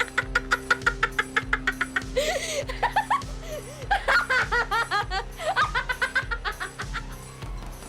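People laughing in quick giggling runs, loudest about halfway through, over background music with a steady beat.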